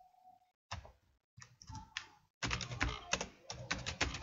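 Typing on a computer keyboard: quick runs of key clicks, scattered at first and then a dense run in the second half.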